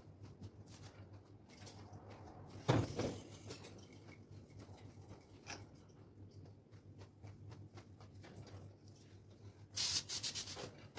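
Faint clicks and rustling from a bird cage being handled and cleaned, with one sharp knock about three seconds in and a short hissing scrape near the end.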